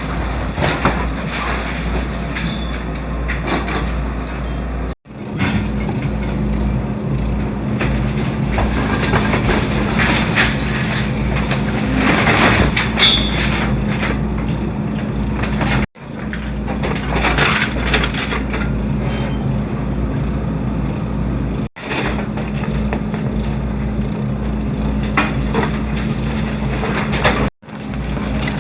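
Hydraulic excavator running steadily while crunching and scraping concrete rubble in a house demolition. The sound breaks off abruptly four times.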